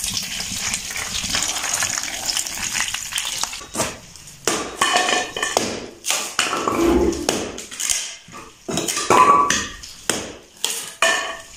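Wood fire crackling in a brick stove's firebox, then a hatchet splitting dry old window-frame wood on a concrete floor. About eight sharp knocks come from about four seconds in, with the split pieces clattering down.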